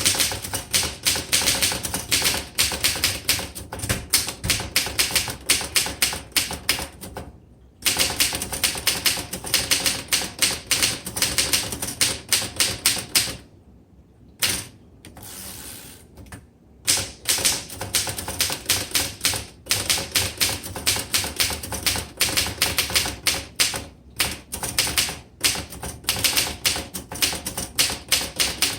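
1926 Royal Model 10 manual typewriter being typed on: rapid, uneven keystrokes with typebars striking the platen. The typing breaks off briefly about seven seconds in and again for a few seconds near the middle.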